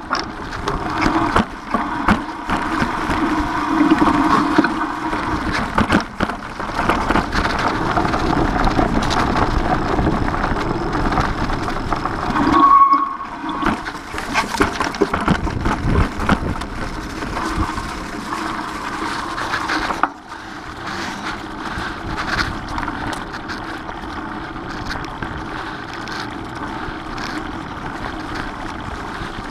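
Mountain bike ridden over leaf-covered dirt singletrack: steady wind rushing on the microphone, with tyres rolling over dry leaves and the bike knocking and rattling over bumps. A short squeak about halfway through.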